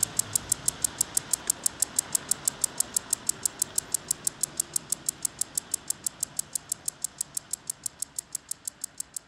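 Synthesised electronic ticks from a live audiovisual performance: a steady pulse of sharp, high clicks, about five a second, over a faint hiss, slowly fading out.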